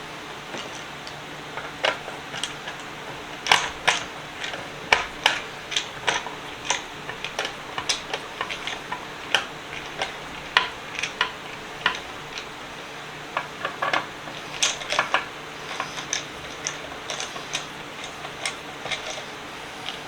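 Irregular sharp clicks and taps of hand work on a steel rolling tool box, coming in clusters of a few a second, over a faint steady hum.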